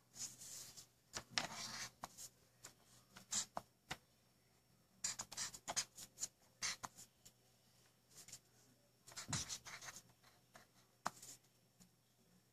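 Black felt-tip marker drawing letters and bond lines on lined notebook paper: short, faint, irregular strokes separated by pauses.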